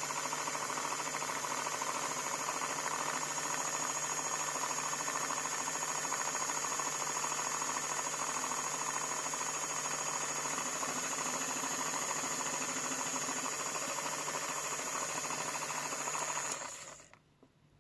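An electric appliance motor running steadily with a constant high whine and a low hum, then switched off near the end and dying away within about a second.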